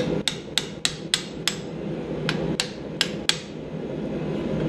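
Ball peen hammer striking a slitting chisel driven into the hot cuts of a mild steel bar clamped in a vise, to open the slits. About ten sharp, ringing metallic strikes come in two quick runs, with a short pause between them.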